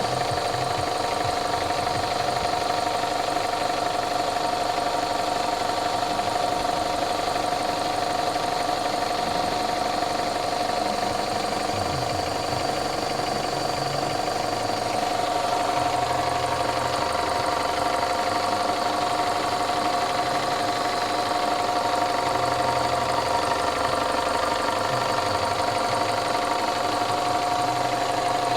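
Toyota 3S-FE two-litre inline-four petrol engine idling steadily with a knock, a ticking clatter, whose cause the owner does not know.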